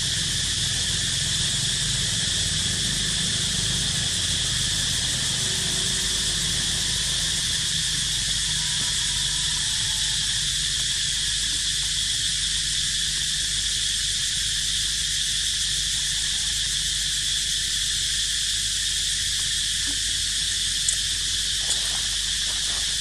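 Steady, high-pitched insect chorus that runs on without a break, with two small clicks about two seconds before the end.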